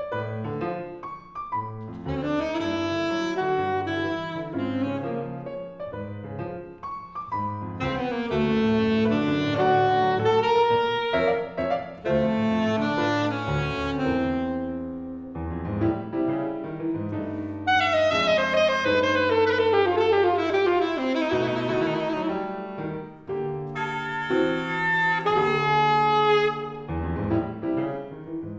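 Instrumental ensemble music played live: sustained melodic notes over chords, with a falling cascade of notes about two-thirds of the way through.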